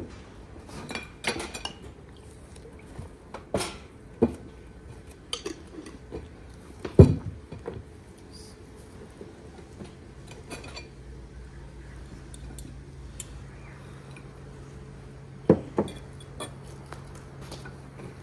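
Cutlery and plates clinking and knocking at irregular intervals, as at a meal, with the loudest knock about seven seconds in. A low steady hum comes in about ten seconds in.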